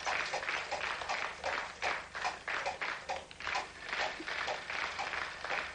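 Game-show prize wheel spinning, clacking steadily about three times a second.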